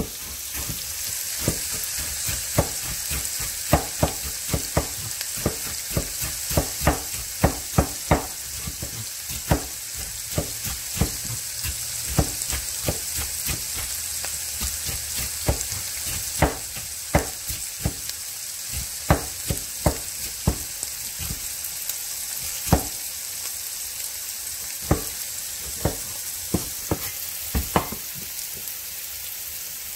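Knife cutting cabbage on a wooden cutting board, with sharp, irregular chops about one or two a second, over the steady hiss of vegetables sizzling in oil in a skillet.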